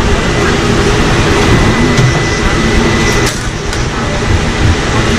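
Loud, steady rumbling drone of a busy street-food stall, with faint voices behind it and a couple of sharp clicks about two and three seconds in.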